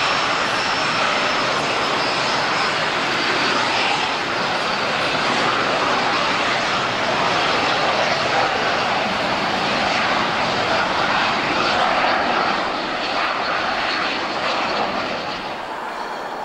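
Aero L-39 Albatros jet trainers on a formation takeoff run, their turbofan engines running at takeoff power: a loud, steady jet roar with a thin high turbine whine. It eases off a little near the end.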